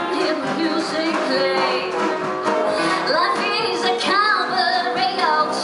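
Live musical-theatre number: a band playing a show tune with a woman singing over it, her voice wavering with vibrato from about three seconds in, heard from the audience.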